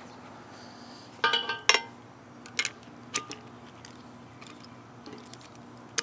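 Hardened-steel U-lock being fitted around a bike frame and post: two loud ringing metal clanks about a second in, then several lighter clicks and taps of the shackle and lock body.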